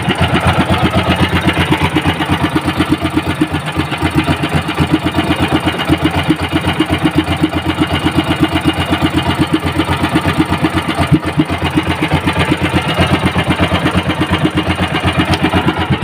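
Small gasoline boat engine running loudly and steadily with a rapid, even firing beat, being test-run to condition it before going out to sea.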